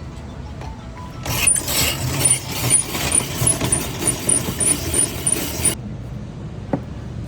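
Ice crusher machine grinding ice for about four seconds, a coarse rasping noise with a light rapid ticking, then cutting off suddenly. A low steady rumble runs underneath.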